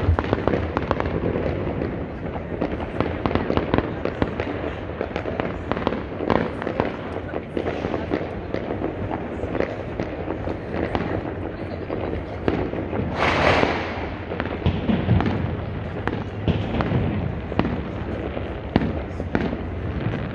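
Many homemade fireworks and firecrackers going off across a city at once: a dense, continuous crackle of overlapping bangs near and far. A louder hissing burst comes about two-thirds of the way through.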